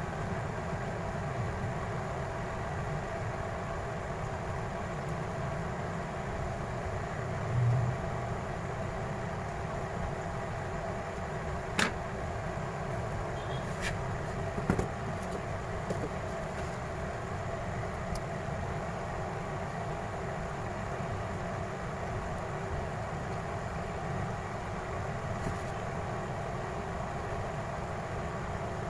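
Steady background hum with a low thump about eight seconds in and a few sharp small clicks around twelve and fifteen seconds in, from a smartphone's parts being handled during reassembly.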